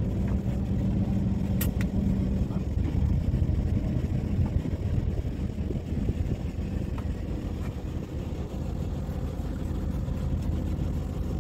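A fishing boat's engine running steadily with a low rumble, with one sharp click a couple of seconds in.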